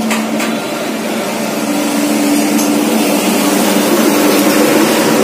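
A steady mechanical drone from a running motor or engine, slowly growing louder, with a couple of light metal clinks near the start.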